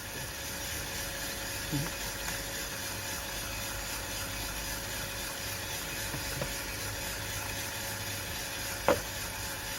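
Aillio Bullet R1 coffee roaster running mid-roast with beans in the drum: a steady, even whir with a faint low hum and a faint steady tone under it. A single sharp click near the end.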